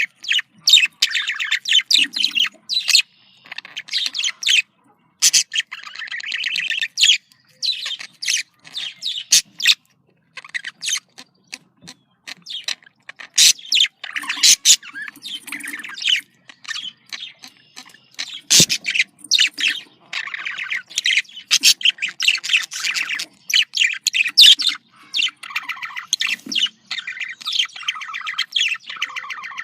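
Budgerigars chattering and warbling: rapid, continuous high chirps and squawks with brief pauses.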